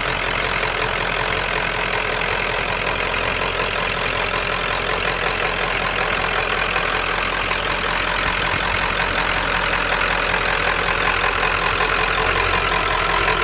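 1995 Ford F250's 7.3L Powerstroke turbo-diesel V8 idling steadily.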